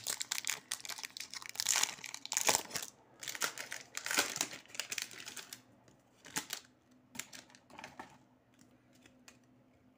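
Plastic trading-card pack being torn open and crinkled by hand: a dense crackling that thins to a few scattered crackles after about six seconds.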